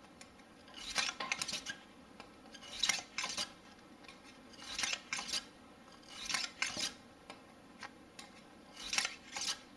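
Wire bore brush on a cleaning rod scraping in and out of a Glock 19's 9mm barrel, in back-and-forth pairs of strokes about every two seconds.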